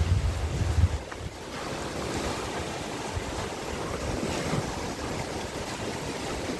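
Surf breaking and washing over a rocky shoreline, a steady rush of water, with a low rumble of wind on the microphone in the first second.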